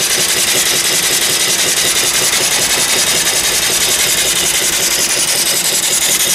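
Homemade single-cylinder vertical steam engine, 3-inch bore by 4-inch stroke, running steadily under steam, its rapid, even exhaust beats over a continuous hiss of venting exhaust steam.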